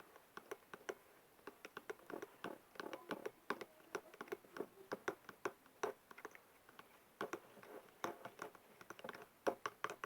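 Hard utensil clicking and tapping irregularly against a dish, several small clicks a second, while liquid soap and dishwashing liquid are stirred together.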